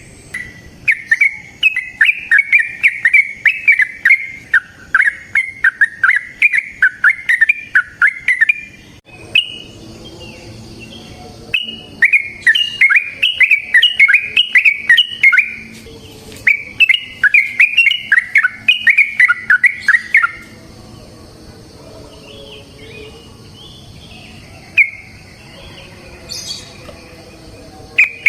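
Yellow-vented bulbul (trucukan) singing long, rapid, bubbly warbling phrases, the 'ropel' song used as a lure to set other trucukan singing. There are three runs of several seconds each, then a quieter stretch with only a few scattered notes.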